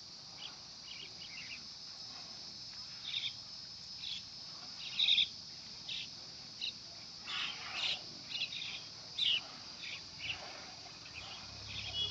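Rural outdoor ambience: a steady high insect drone with many short bird chirps and calls scattered irregularly through it.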